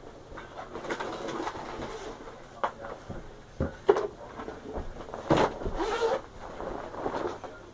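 Clothing and a cloth bag rustling as they are handled and taken off, with several sharp knocks and bumps, the loudest about four seconds in.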